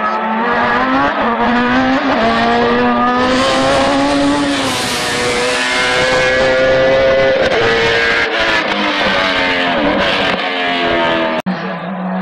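A race car's engine at high revs climbing past, its pitch rising through each gear and dropping sharply at the shifts, loudest as it goes by. It cuts off abruptly near the end and another engine note follows.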